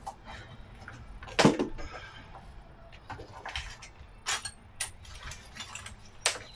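Small hand tools from a motorcycle's kit clicking and knocking as the kit is opened and handled, a handful of separate sharp clicks, the loudest about a second and a half in.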